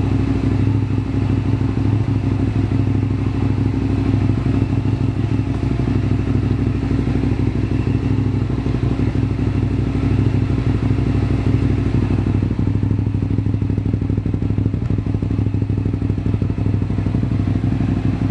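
Hyosung GT650R's 650 cc V-twin idling steadily through its custom-made exhaust, a low, heavy, even note with no revving.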